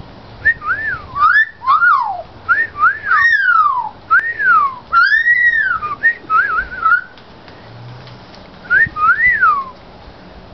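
Juvenile Australian magpie whistling, mimicking a human wolf whistle: a quick run of rising-and-falling whistled glides, then a pause and two more whistles near the end.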